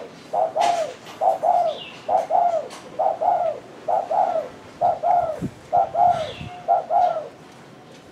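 Caged wild-caught spotted dove cooing (the keepers' "gù"): a run of about eight paired low coos, roughly one pair a second, ending near the close. This is the strong, ready cooing of a wild-caught dove that has settled in and taken to cooing.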